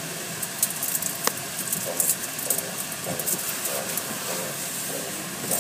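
Automatic car wash heard from inside the car: a steady hiss of water and foam spraying onto the windshield, with cloth wash strips brushing and slapping over the glass in short irregular hits.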